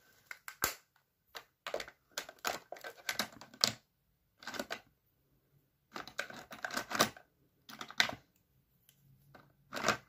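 Make-up items being handled and rummaged through: irregular clusters of clicks, taps and rustles with short pauses between them, including a sharp click about half a second in.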